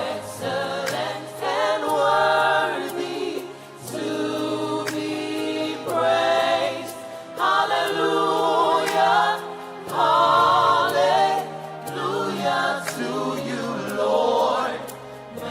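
Gospel choir singing in phrases over a steady low accompaniment.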